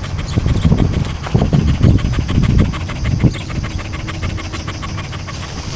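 A dog panting close by, quick breathy pulses that are strongest for the first three seconds and then ease off.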